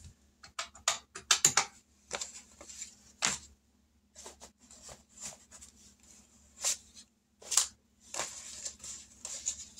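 Paper envelopes and cash bills being handled, rustling in short scattered snatches with brief pauses between.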